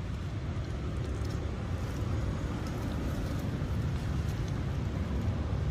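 A steady low rumble of outdoor background noise, with a few faint ticks.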